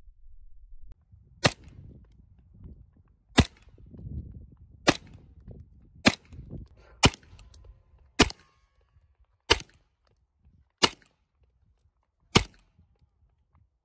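Ruger PC Carbine, a 9mm semi-automatic, firing nine single shots one to one and a half seconds apart, each a sharp crack with a short echo.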